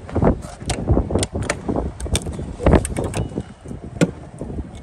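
Footsteps crunching on icy, packed snow at a walking pace of about two steps a second, over a low rumble.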